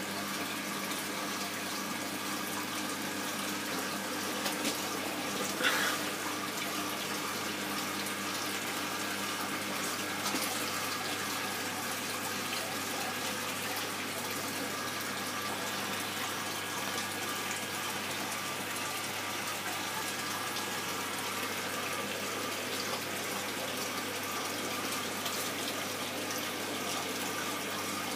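Steady running and splashing water from a reef aquarium's circulation, with a constant pump hum underneath. A brief knock about six seconds in.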